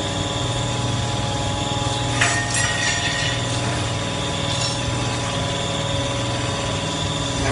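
Scrap copper baler running with a steady machine hum, with one sharp metallic knock and a short ringing tone about two seconds in.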